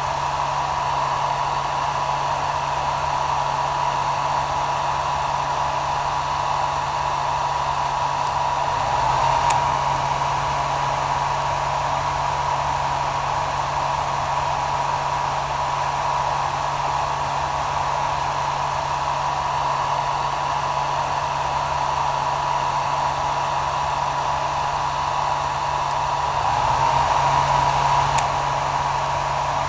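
Electric hair dryer running steadily: an even rush of blown air over a constant motor whine and a low hum. It swells slightly twice, about nine seconds in and again near the end.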